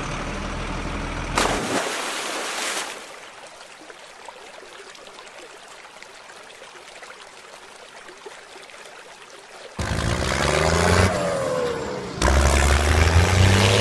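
A toy lorry hits the river with a splash, then water swirls and trickles faintly for several seconds. Near the end an engine sound comes in, revving with falling pitch and then running loud and low.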